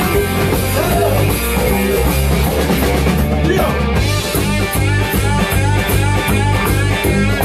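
Rock band playing live at full volume, led by a close electric bass over a drum kit. About four seconds in, the part changes to a tighter, evenly pulsing riff.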